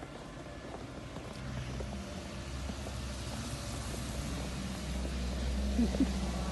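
Low engine rumble of a passing vehicle, growing steadily louder over the first few seconds.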